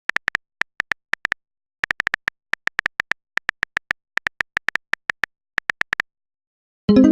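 Phone keyboard typing sounds: a rapid, irregular run of short, identical clicks, in bursts with brief pauses, as a text message is typed out. Right at the end a louder message tone begins.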